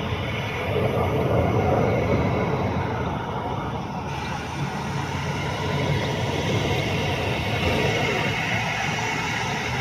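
Jet airliner engine noise, a loud steady rumble that swells slightly about a second in.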